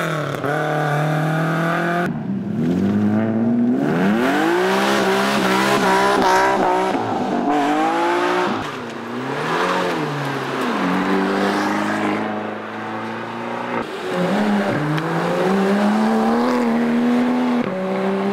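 Car engines accelerating hard one after another, each note climbing in pitch and dropping back at the gear changes before climbing again.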